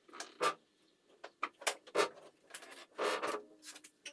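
A 14 ft Simms Super V fiberglass speedboat hull, hanging on ropes, is rolled over by hand and makes a run of irregular creaks, rubs and knocks as it shifts and turns.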